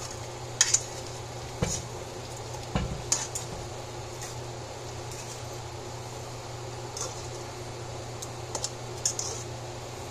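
Metal spoon clinking and scraping against the side of a metal cooking pot while stirring meat in a thick sauce. There are several sharp clinks in the first few seconds and a few more near the end.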